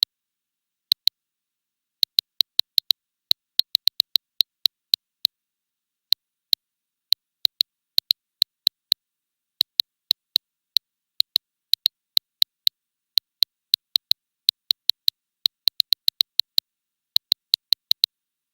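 A long series of short, sharp, identical clicks at an uneven pace of about three a second, some in quick pairs, with dead silence between them.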